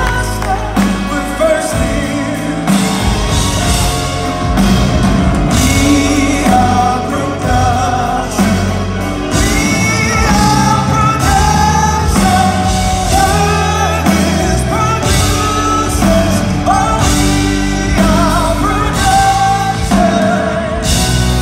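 Live band with a lead singer and drums playing through the PA of a large hall, picked up from among the audience.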